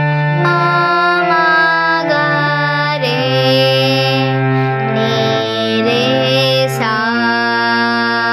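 A girl singing a tarana in Raag Yaman to harmonium accompaniment, the harmonium's reeds holding steady notes that change every second or so beneath her voice.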